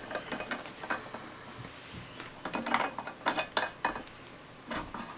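Light clicks and taps of a resin 3D printer's resin vat being fitted, its thumb screws turned in by hand to hold it in place. Scattered short clicks, bunched together in the middle.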